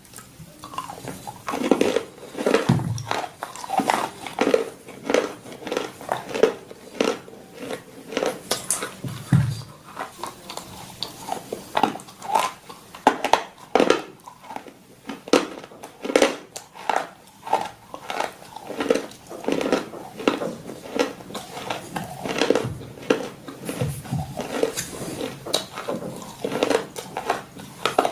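Crunchy food being bitten and chewed: a steady run of sharp crunches, about two a second, with a few duller knocks.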